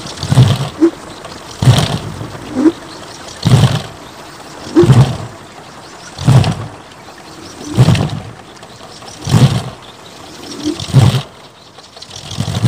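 A 4-metre kolecer, the Sundanese wooden wind propeller on a tall pole, turning in the wind. Each pass of its blade gives a deep whooshing roar likened to thunder, coming regularly about once every one and a half seconds.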